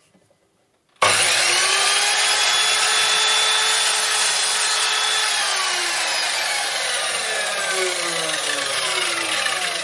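Electric mitre saw switched on with a sudden whine about a second in, its blade lowered to cut into a block of wood. About halfway through the motor is released and the blade winds down with a steadily falling whine.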